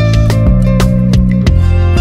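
Background music: plucked and strummed guitar with sustained notes and a steady beat.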